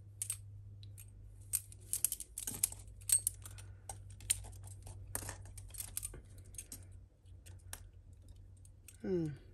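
Small metal costume jewellery clicking and clinking as a tangle of chains, clasps and bangles is picked apart by hand: a run of light, irregular ticks and jingles.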